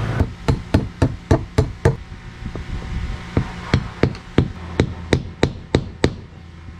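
Hammer blows driving sealant-coated galvanized carriage bolts home through a wooden hull plank and butt block. There are two runs of quick, even strikes, about three to four a second, with a short pause between.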